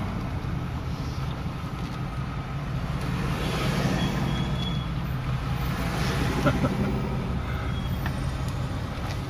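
Steady engine hum and tyre-on-road noise heard from inside a vehicle's cabin as it drives a winding mountain road.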